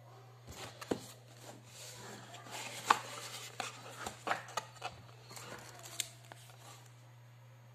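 A cardboard box being opened by hand, its flaps pulled back, then a paper manual and packing rustled and lifted out: a run of scrapes, rustles and sharp clicks, the sharpest about three seconds in. A steady low hum sits underneath.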